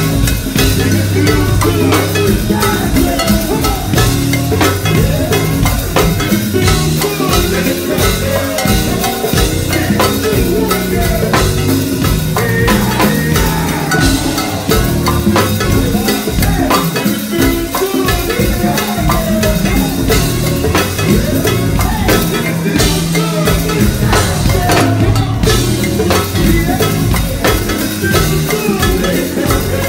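Live band playing loudly, a drum kit and hand percussion keeping a busy beat over steady bass notes.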